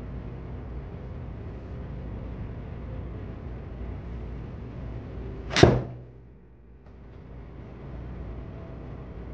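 Golf iron striking a ball off an artificial-turf hitting mat: one sharp crack a little over halfway through, over a steady low hum.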